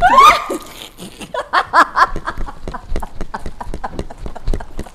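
Women startled by a prank: a short, loud startled cry right at the start, then laughter in short repeated bursts.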